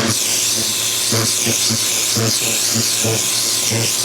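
Ryobi 2000 PSI electric pressure washer running: a steady hiss from the water jet over a low motor hum that pulses irregularly a few times a second.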